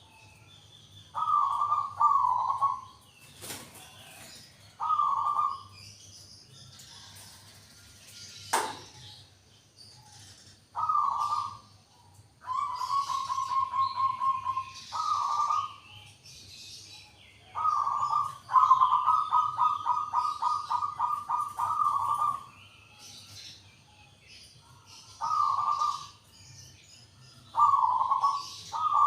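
Zebra dove (perkutut) singing: repeated short cooing phrases, with rapid rolling trills about 12 s in and again from about 18 to 22 s. Other small birds chirp faintly behind it.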